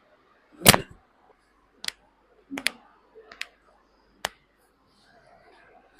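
Sharp cracks of joints popping during a chiropractic adjustment: one loud crack with a thump about two-thirds of a second in, then a series of smaller, quieter pops over the next few seconds.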